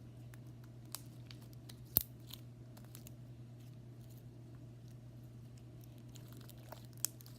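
Homemade slime being stretched and handled, giving small scattered clicks and pops, with a sharper click about two seconds in and another near the end. A steady low hum runs underneath.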